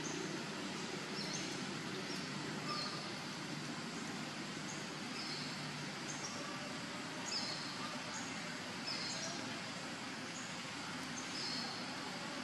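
Short, high chirping notes repeating about once a second, like a small bird's call, over a steady outdoor background hiss.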